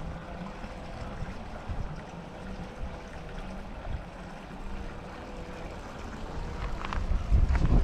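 Wind rumbling on the microphone, with a faint steady hum behind it. The rumble grows louder near the end, where a few sharp clicks come through.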